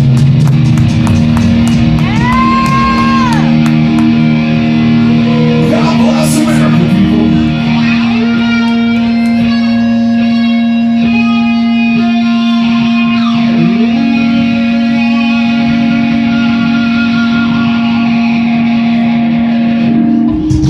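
Live rock band, electric guitar to the fore, recorded on a phone: drum hits in the first few seconds, then a low guitar note held and ringing while lead guitar bends and runs over it, before the music cuts off near the end.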